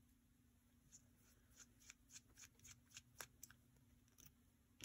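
Faint, scattered clicks and light taps of small metal parts being handled as an HO-scale model locomotive's motor truck is taken apart, over a faint steady hum; otherwise near silence.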